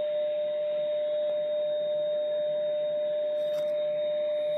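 A Grundig 2147 valve radio's loudspeaker plays a steady 600 Hz test tone over hiss. The tone is a signal generator's AM modulation, received at 560 kHz on the medium-wave band while the set is being RF-aligned.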